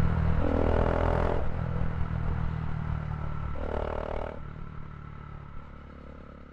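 Bajaj Dominar 400's single-cylinder engine running through an Akrapovic slip-on muffler, with the catalytic converter replaced by a resonator, as the motorcycle rides along. The note swells briefly twice and the whole sound fades away steadily.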